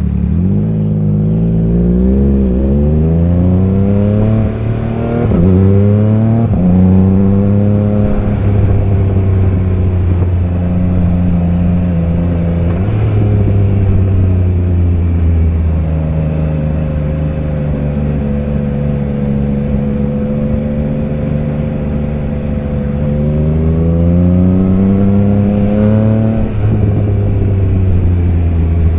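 Triumph Trident 660 inline three-cylinder engine accelerating hard through several quick upshifts: its pitch rises and drops back with each gear change. It then holds a steady cruise, rises again, and shifts once more near the end.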